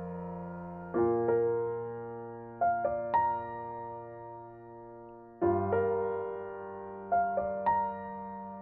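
Slow, gentle piano music: a chord struck every few seconds with a few added notes, each left to ring and fade.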